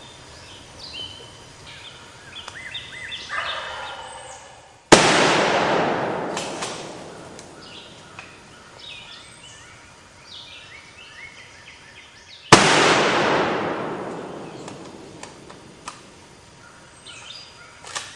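A wild turkey gobbles a few seconds in. Then a shotgun fires twice, about seven and a half seconds apart, and each blast rings out and dies away over a couple of seconds. Short bird calls sound in between.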